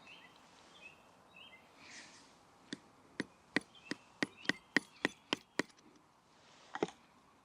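Wooden baton knocking on the spine of a Swiss Army knife blade (Victorinox Ranger) to split wood: a quick run of about a dozen sharp knocks over three seconds, then one more a second later.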